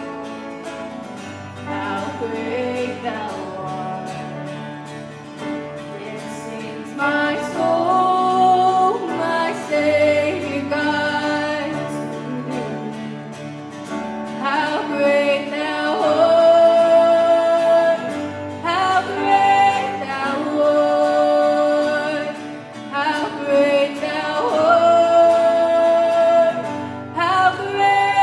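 Worship band playing a song: acoustic guitar strummed under several voices singing into microphones, in phrases that swell and fall back.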